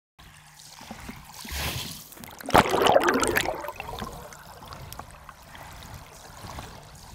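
Water sloshing and gurgling, picked up by the camera underwater. About two and a half seconds in there is a sharp knock, followed by the loudest stretch of splashing and gurgling, which then settles back to a steady wash.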